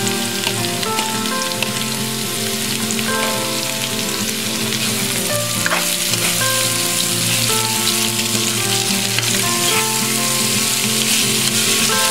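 Sliced onions sizzling in hot oil in a wok with garlic and ginger as they sauté, stirred with a plastic spatula; steady background music plays underneath.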